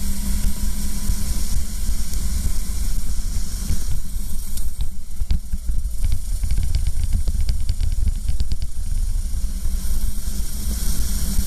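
Racing kart's engine running at speed, heard onboard, with heavy wind rush on the microphone. A run of sharp clicks and rattles comes through between about four and nine seconds in.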